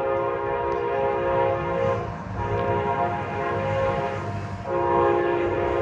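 Amtrak locomotive AMTK 160's multi-tone air horn sounding long blasts as the train passes: one ends about two seconds in, a second follows, and a third starts near the end, over the steady rumble of the moving train.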